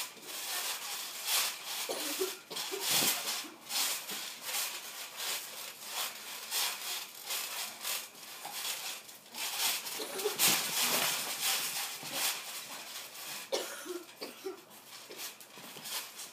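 Scuffling on a trampoline: repeated bumps and rustles as bodies hit and slide on the mat, with short grunts, coughs and hard breathing from the wrestlers.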